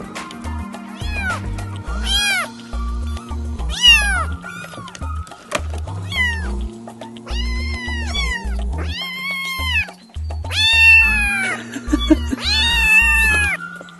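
Kittens meowing loudly, about eight high calls that rise and fall in pitch, the later ones drawn out longer, over background music with a steady bass beat.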